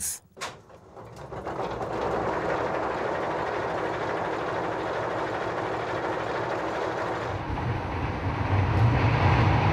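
Napier Deltic 18-cylinder opposed-piston two-stroke diesel in a Class 55 locomotive being started. A click at the start, then a rushing cranking noise that builds and holds steady. About eight seconds in, a deeper, louder running note comes in as the engine fires and runs up.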